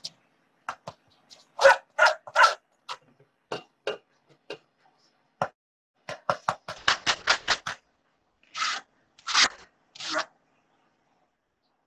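Metal spoon scraping and tapping against a fine steel mesh strainer as tomato sauce is pressed through into a steel pot, heard over a video call. It comes in irregular scrapes and clicks, with a quick run of about seven strokes a second midway, then three longer scrapes near the end.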